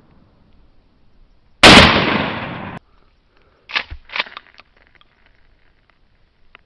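A single 12-gauge shotgun blast firing 00 buckshot, very loud and sharp, with a trailing echo that cuts off suddenly about a second later. A few fainter short sharp sounds follow a couple of seconds on.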